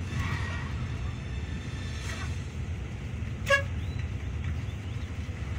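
Steady low rumble of a Yutong bus's engine and road noise heard inside the cabin, with one short horn toot about three and a half seconds in.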